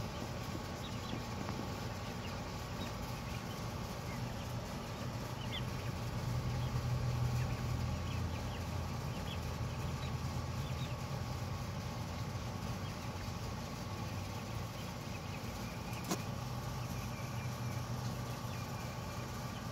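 Heritage Bronze turkey poults peeping faintly now and then over a steady low hum that swells a little about six seconds in, with a single sharp click near the end.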